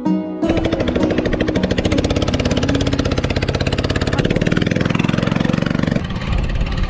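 The engine of a ketinting outrigger fishing boat running under way, with a fast, even beat of firing strokes.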